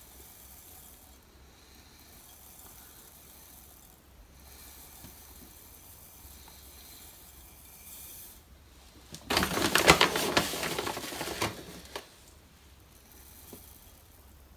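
Silica gel cat-litter crystals poured from a glass jar into a glass measuring cup on a scale. It is faint for most of the time, then about nine seconds in comes a loud rattling pour of crystals lasting about two seconds, followed by a few single clicks of stray granules.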